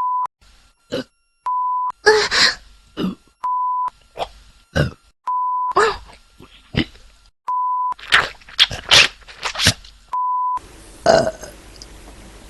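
A string of short burps, each cut off and followed by a brief steady beep, six beeps in all. There is a quick run of several burps about two-thirds of the way through.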